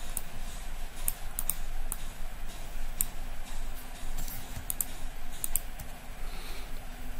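Irregular clicks of a computer mouse and keyboard, a few in each second, over a steady low hum.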